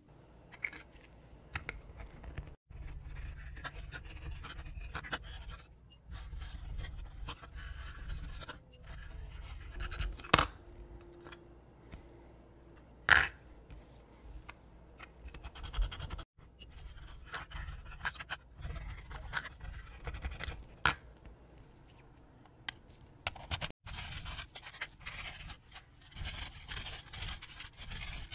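Small metal watchmaker's tools scratching and clicking on a fusee pocket watch movement as it is taken apart, with two sharper clicks a little before halfway.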